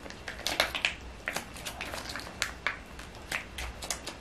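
Foil seasoning sachets crinkling and crackling in hands as sauce is squeezed out of them onto instant noodles, a run of short irregular crackles, loudest a little under a second in.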